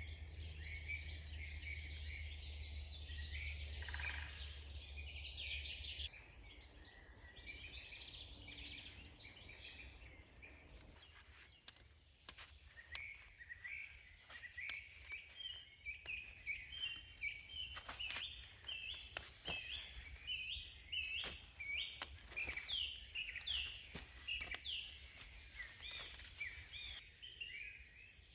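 Songbirds singing in a spring forest, many short high chirps overlapping; in the second half one bird repeats a short chirping phrase about twice a second. A low rumble underneath stops about six seconds in, and light clicks and knocks come and go in the second half.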